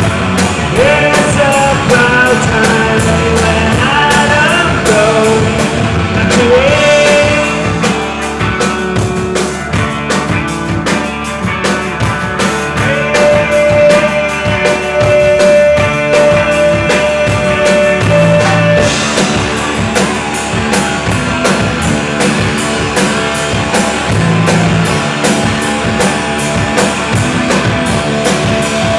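Live rock band playing: electric guitars and drum kit, with a long held note in the middle of the passage.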